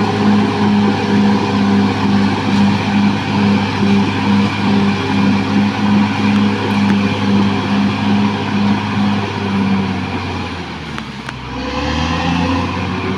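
Caterpillar D6R XL bulldozer's diesel engine running steadily with a regular pulsing beat about twice a second. About ten seconds in it sags and drops in pitch, then picks back up.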